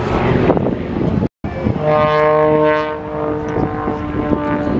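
Aerobatic plane's piston engine and propeller droning overhead, with the sound cutting out for a moment a little over a second in and then coming back as a strong, steady drone.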